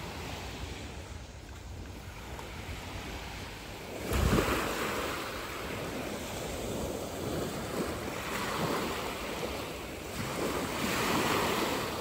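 Small sea waves breaking and washing up on a sandy shore, louder from about four seconds in, each wash swelling and falling away.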